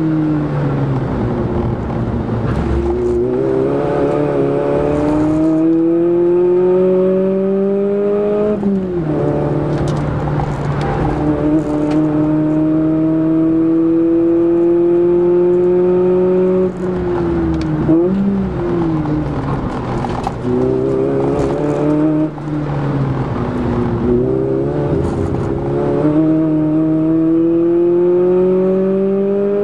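Toyota Echo's 1.5-litre four-cylinder engine heard from inside the cabin, driven hard on track: the revs climb steadily through each gear and drop sharply at the shifts, several times over, with a few quick dips and blips when slowing for corners.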